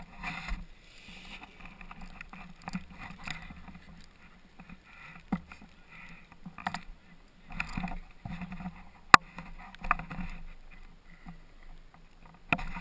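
Helmet-camera microphone rubbed and bumped as the snowboarder shifts about in the snow: irregular scraping and rustling, with a sharp knock about nine seconds in and another near the end.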